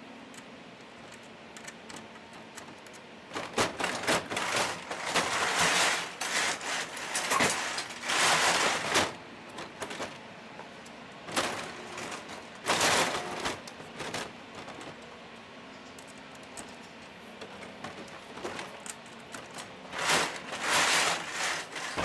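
Clicking and metallic rattling come in several bouts as the emergency release lock is worked with its key. Near the end the sectional garage door rattles as it opens.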